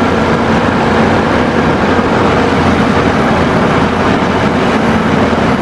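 Heavy engine-like noise running steadily and loudly, a dense hiss over a low hum, starting and stopping abruptly as an edited-in sound.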